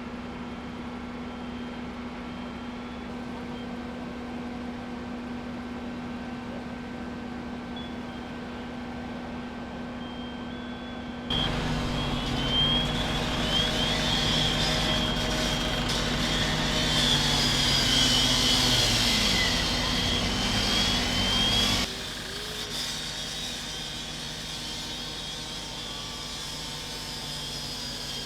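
Fire engine running steadily with a constant low hum. About eleven seconds in, a louder, busier stretch of engine noise with wavering higher tones cuts in, then stops abruptly about ten seconds later.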